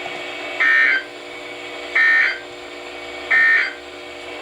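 Emergency Alert System end-of-message (EOM) data bursts: three short, identical buzzing digital bursts about 1.3 seconds apart, over the radio's steady hum. They mark the end of the alert broadcast.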